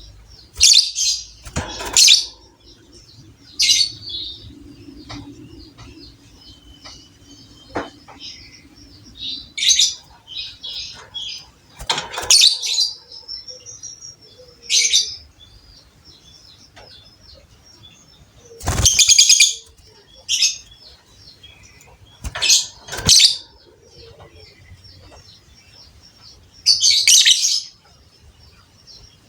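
Lovebird calling in about a dozen loud, short chattering bursts at irregular intervals, the longest about two-thirds of the way through, with softer twittering between them.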